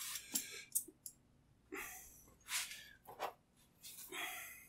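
Short, faint puffs of hissing air and small clicks from an air-hose chuck on the valve stem of an alloy motorcycle wheel, with near-silent gaps between them, as the tire is being topped up to pressure.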